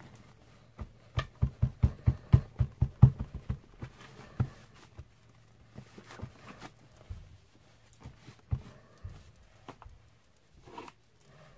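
A cloth patted and pressed onto a card on a craft mat: a quick run of soft thumps, about five a second, for the first few seconds, then scattered lighter knocks and rubbing.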